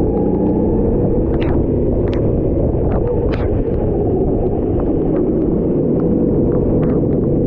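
Rental racing kart engine running steadily at speed, its note shifting slightly in pitch, with short sharp ticks scattered through.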